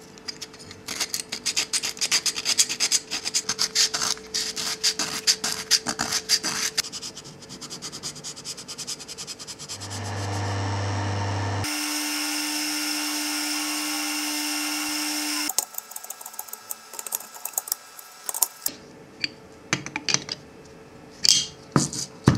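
Sandpaper rubbed quickly back and forth over a painted aluminium grinder guard, stripping the paint, in rapid scratchy strokes for the first several seconds. About ten seconds in, a motor starts with a low hum and runs steadily for about five seconds, spinning an abrasive wheel with the guard held against it, then cuts off. After that come scattered clicks and knocks of the metal guard being handled and fitted.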